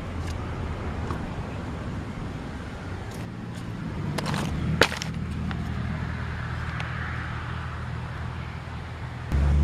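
Plastic tackle box and lures being handled, with a few sharp plastic clicks and rattles about three to five seconds in, over a steady low hum. Near the end a much louder low hum starts suddenly.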